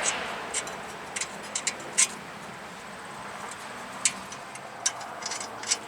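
Scattered light metallic clicks and taps as a castle nut is turned over and threaded back onto its stud by hand, with a cluster of quicker clicks near the end.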